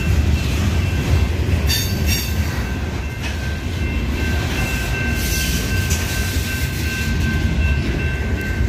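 Freight cars of a Union Pacific train rolling past at close range: a steady rumble of steel wheels on the rail with a few clacks, and a thin, steady wheel squeal that grows stronger about halfway through.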